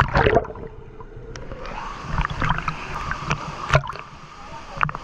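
Rushing, splashing water, with scattered sharp knocks and clicks and a louder splash-like burst right at the start.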